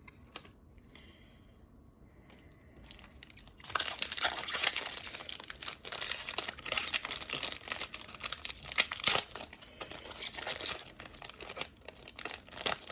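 Foil wrapper of a trading card pack being torn open and crinkled by hand, starting about three and a half seconds in and continuing as a dense, loud crackle.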